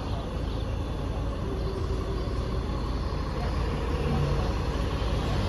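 Heavy diesel vehicle engine running with a steady low rumble.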